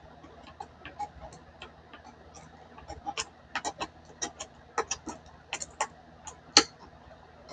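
Small pocket emergency can opener with a spoon end cutting around the lid of a tin can by hand: a run of irregular sharp clicks as the blade levers through the metal. The clicks are sparse at first, come quicker from about three seconds in, and the loudest is near the end.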